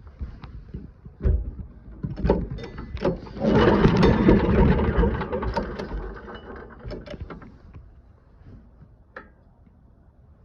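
Small engine on a wood chipper being yanked over with its recoil pull-starter: a few sharp pulls, then a louder stretch of a few seconds that fades out without the engine keeping running, because it is out of fuel.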